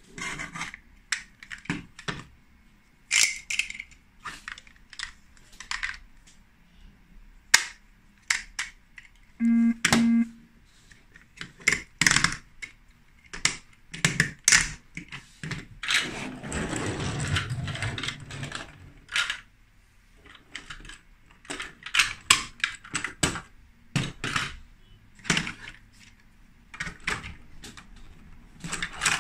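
Plastic Lego Duplo pieces clicking and knocking as they are handled and snapped together on a table, a string of sharp, irregular clicks. About a third of the way in come two short low buzzes, and just past the middle a longer stretch of scraping and rustling.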